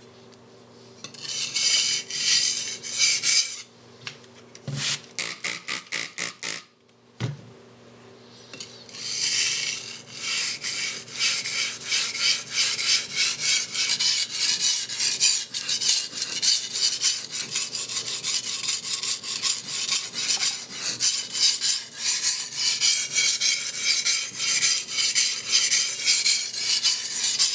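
A white-steel cleaver blade being rubbed back and forth on a coarse 320-grit Nubatama Bamboo Japanese waterstone: a gritty, hissing scrape in rapid, even strokes. There are short pauses about 4 and 7 seconds in, then the strokes run on steadily.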